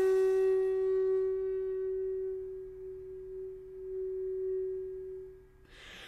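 Background music: one long held flute-like note that slowly fades out shortly before the end, followed by a brief faint hiss.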